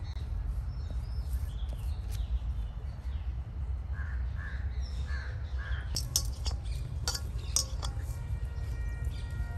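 A crow cawing four times in quick succession, over a steady low rumble. A few sharp clicks and taps follow.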